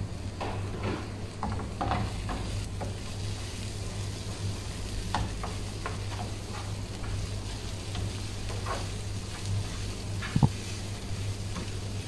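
Chopped onions sizzling in oil in a nonstick frying pan while a wooden spoon stirs and scrapes through them, with a steady low hum underneath. One sharp knock about ten seconds in is the loudest sound.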